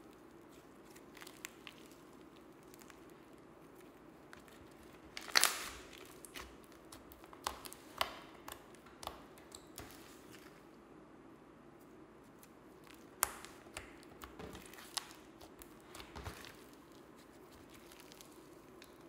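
Slime being squished and worked by hand, giving scattered sticky pops and squelches at irregular intervals, the loudest a short burst about five seconds in.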